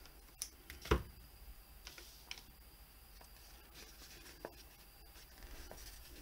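Faint handling of a folded paper sticker sheet being picked up off a table and opened out: light paper rustling with a few small taps and clicks, the loudest a knock about a second in.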